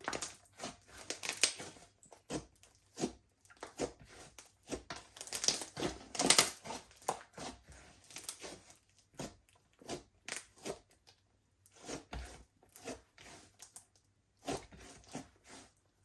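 Slime being squished and stretched by hand, giving irregular sticky pops and crackles in quick clusters.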